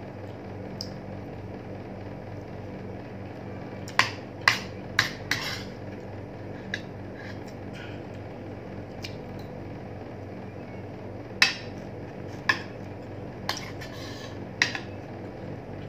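Metal fork and spoon clinking against dishes while eating: a quick run of four clinks about four seconds in, then four more spread out later on, over a steady low hum.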